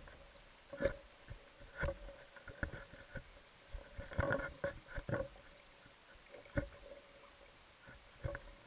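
Underwater recording: irregular sharp clicks and knocks, several close together about four seconds in, over a faint steady hum.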